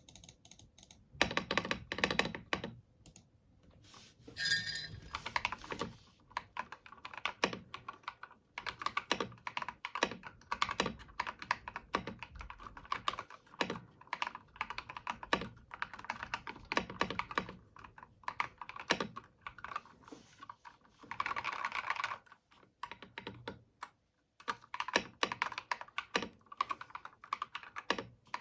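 Typing in fast bursts on a mechanical keyboard fitted with prelubed Akko CS Wine Red linear switches and PBT keycaps, a clacky, poppy sound. There is a short pause a little over three quarters of the way through.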